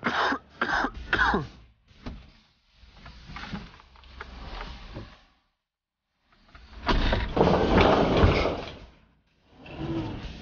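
A man coughing three times into his fist, followed by rustling and clattering handling noises, the loudest and heaviest stretch about seven to nine seconds in.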